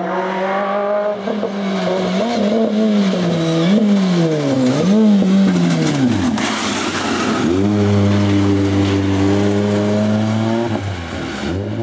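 Rally kit car's four-cylinder engine at full song, revs rising and falling several times through throttle lifts and gear changes, then dropping steeply. From about eight seconds in it holds a steady high note, with a quick dip and climb near the end.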